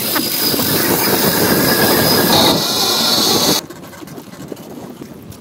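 A loud, steady rushing hiss that cuts off suddenly about three and a half seconds in.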